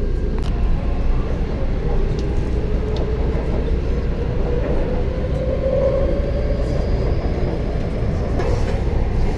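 Taipei MRT train running, heard from inside the passenger car: a steady rumble of the moving train with a whine that rises slowly in pitch and is loudest about six seconds in.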